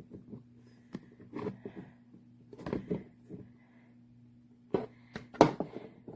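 Plastic knocks and clicks from an indoor dryer vent box being handled. There are several separate knocks, and the loudest comes near the end.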